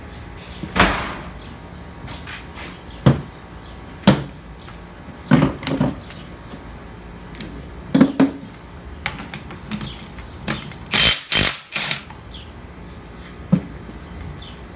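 Metal hand tools and sockets being handled: scattered clanks and knocks, with a short burst of rattling clatter about eleven seconds in.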